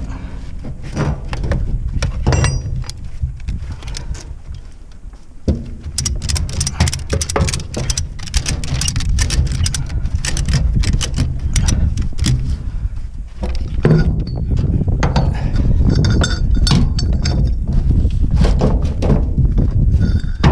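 Repeated metallic clanks, knocks and clinks from hand work with tools on a manure spreader's floor conveyor chain and slats, over a steady low rumble. The knocking comes thickest in a fast run about a third of the way in.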